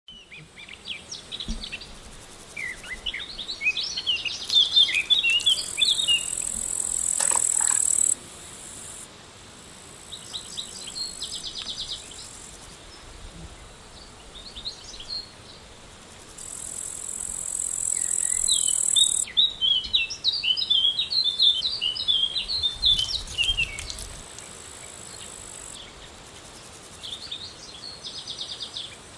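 Birds chirping in quick twittering bursts over a high, steady insect buzz that switches on and off, a rural outdoor ambience.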